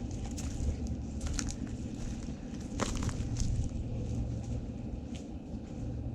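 Footsteps crunching on debris: a few scattered crunches and clicks over a steady low rumble.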